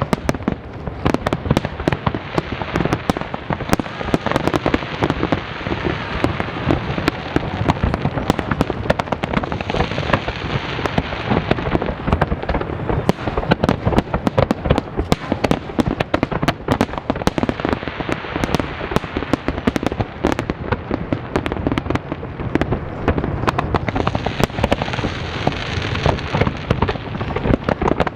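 Fireworks display going off continuously: a dense, unbroken barrage of bangs and crackling shells with no pauses.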